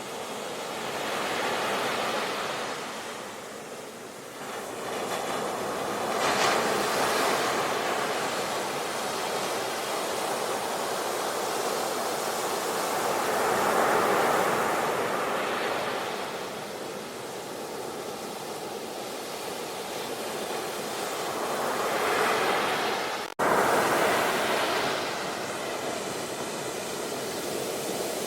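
Ocean surf: waves breaking and washing in, the rush swelling and falling back every several seconds. A split-second gap in the sound comes near the end.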